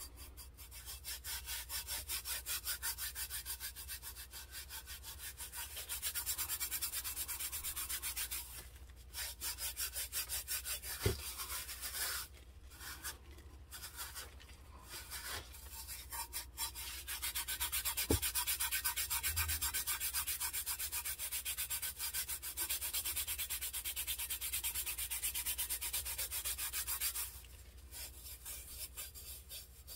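Gloved hand rubbing glitter over a tacky tack-it-coated tumbler, working it in and burnishing off the excess: rapid back-and-forth rubbing strokes in long spells with short pauses, and a couple of light taps.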